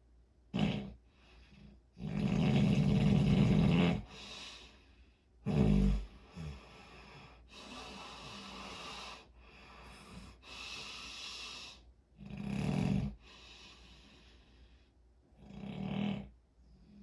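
Snoring: a run of irregular snores of uneven length and strength, the longest and loudest about two seconds in, with quieter breathing between.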